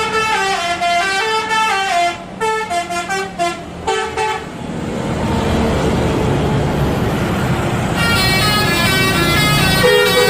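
Bus 'telolet' horn, a multi-tone musical horn, playing a quick stepping tune for about four seconds. A steady noise then swells and holds, and the horn tune starts again over it about eight seconds in.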